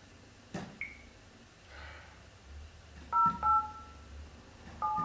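Touch-tone keypad tones of a corded telephone being dialed: short two-note beeps, two in quick succession about three seconds in and another near the end. A couple of soft clicks about half a second in.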